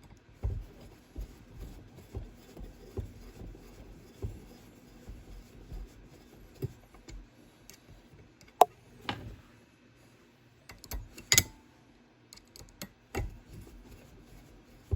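Small screws being tightened with a screwdriver into a stove fan's motor mount: light scraping and handling, with a few sharp metallic clicks in the second half.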